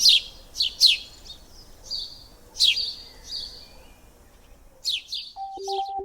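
Small birds chirping: a series of quick, high chirps that sweep downward in pitch, a few seconds apart. Near the end a simple electronic tune of repeated notes starts.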